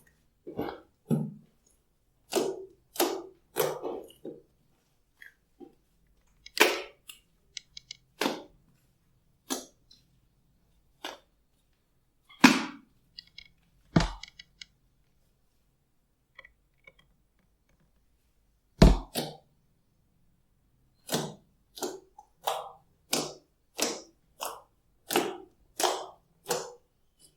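Glossy slime worked by hand, giving a string of separate sticky clicks and pops, a few of them sharp loud cracks, and a run of about one pop a second near the end.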